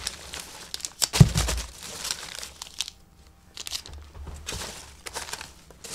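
Packing peanuts and snack wrappers rustling and crinkling as a hand rummages through a cardboard shipping box, with one dull thump about a second in. The rustling drops away briefly near the middle.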